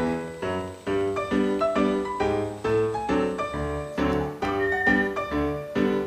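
Background music: an upbeat ragtime piano tune with a steady beat.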